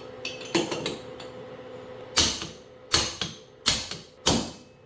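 Hammer striking a seal driver to seat a new seal in a Toyota Hilux Surf power steering rack housing. A few light taps come first, then four sharp blows about two-thirds of a second apart in the second half, each with a short ring, as the seal is driven home to the bottom of its bore.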